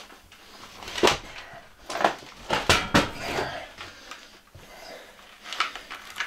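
A 129-pound battery being shifted on a plywood floor and pushed into a steel battery rack: a run of sharp knocks and clunks, with the loudest about a second in and a quick pair around three seconds in, and scraping and shuffling between them.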